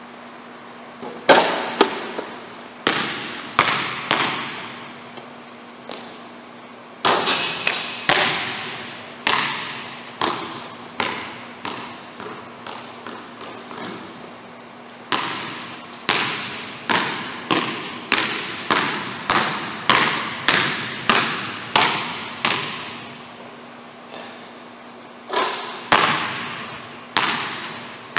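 A basketball bouncing on a hardwood gym floor in runs of dribbles, about two bounces a second through the middle stretch, each bounce echoing around the bare gym. A faint steady hum runs underneath.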